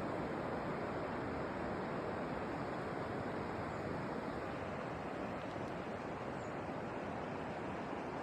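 Steady outdoor nature ambience: an even, unbroken rushing noise with no distinct events.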